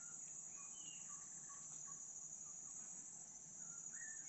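A steady, high-pitched insect chorus drones from the riverbank forest, with a few faint short whistled notes over it.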